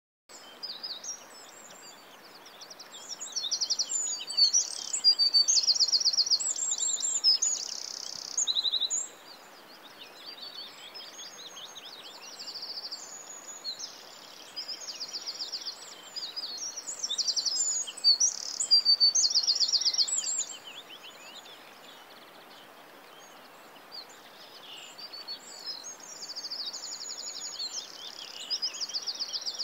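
Birdsong ambience: several small birds chirping and singing rapid high trills, over a faint steady hiss. It starts suddenly out of silence just after the beginning and swells louder twice.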